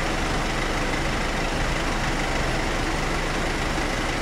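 Engines of parked ambulances idling, a steady drone with a faint steady high whine over it.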